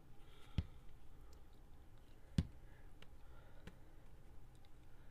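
Light clicks and knocks of small craft items being handled and set down on a work table: two sharper knocks, about half a second in and a little over two seconds in, with a few fainter ticks after.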